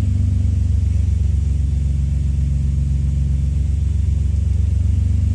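Nissan Skyline R32 GT-R's RB26DETT twin-turbo straight-six idling steadily at about 1,000 rpm, heard from inside the cabin. The engine is still cold, with coolant at about 34 °C.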